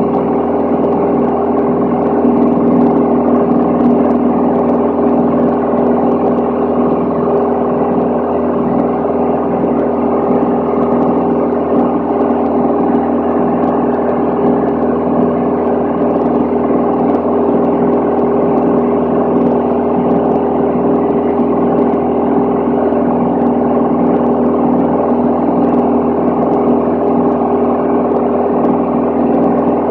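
Van's RV-10 light aircraft's piston engine and propeller droning steadily in cruise flight, heard inside the cabin: a constant, unchanging hum of several steady tones over a wash of air noise.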